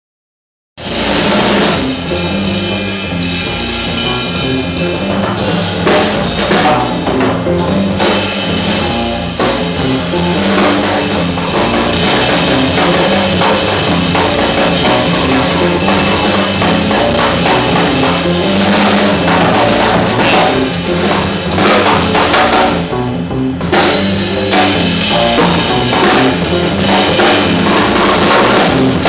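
A small live band playing: drum kit, upright double bass and electric guitar, starting about a second in.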